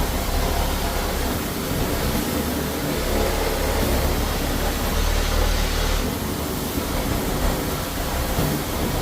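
Floor-cleaning equipment running steadily on a tile floor: a low motor hum under a loud, even hiss that swells and eases as the tool is worked.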